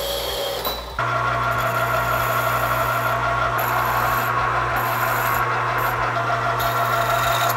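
A horizontal metal-cutting band saw runs for about the first second. Then a metal lathe runs steadily, spinning a steel bicycle head tube while a flat file is held against its end to square it.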